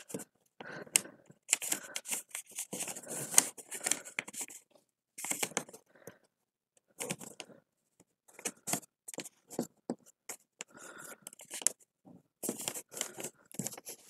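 A sheet of paper being folded by hand and its creases smoothed down with the fingertips: soft rustles and scrapes coming in short spells, with brief pauses between.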